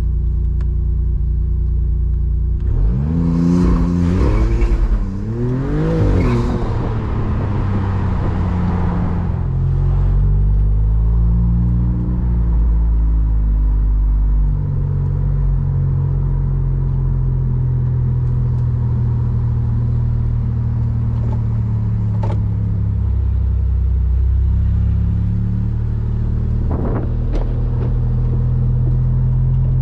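Maserati MC20 Cielo's twin-turbo Nettuno V6 under way, heard from the cabin: about three seconds in the revs climb sharply twice in quick succession, dropping back each time, then the engine settles into steady running at moderate revs.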